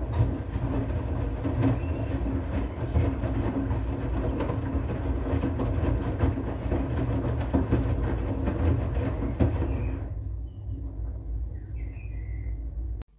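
Front-loading washing machine mid-wash: the drum turns and tumbles the wet laundry, with soapy water sloshing against the door glass over a low motor rumble. The sound eases about ten seconds in as the drum slows, and cuts off suddenly just before the end.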